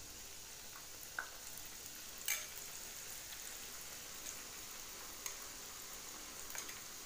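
Batter-coated tempeh pieces frying in hot oil in a pan: a steady sizzle, with a few light clicks and taps over it.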